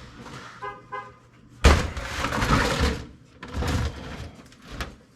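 Metal computer parts being handled during a tear-down: a short squeak just under a second in, then a loud clattering crash of parts about a second and a half in, followed by shorter knocks and rattles.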